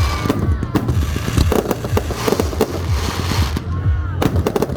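Aerial fireworks display: a rapid, continuous barrage of bangs and booms, many shots a second, with crackling over a deep rumble.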